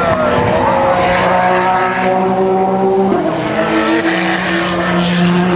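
Endurance race cars passing at speed, engines running at high revs in steady notes; the engine note shifts abruptly about three seconds in.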